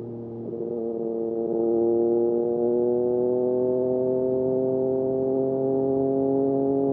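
Triumph Street Triple RS 765 cc three-cylinder engine through an SC Project S1 slip-on exhaust. The throttle opens and the exhaust note gets louder about a second and a half in, then the pitch climbs slowly and steadily as the bike accelerates in gear.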